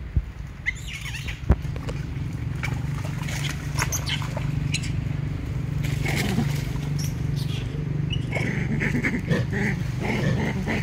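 Forest ambience: a steady low rumble with scattered short high chirps and clicks, and a denser run of short sounds about eight seconds in, while macaques wade through a muddy pool.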